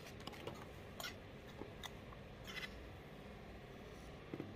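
Faint, scattered clicks and light scrapes of cutlery against plates and a serving bowl as food is dished out.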